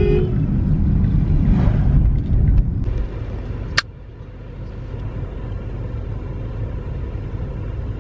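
Low rumble of a car's engine and tyres heard from inside the cabin while driving. It is louder for the first three seconds, then quieter and steady, with a single sharp click about four seconds in.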